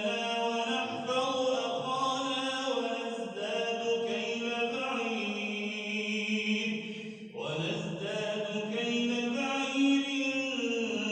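Melodic Quran recitation: a single voice chanting in long, drawn-out held notes that bend slowly in pitch, with a brief break for breath about seven seconds in.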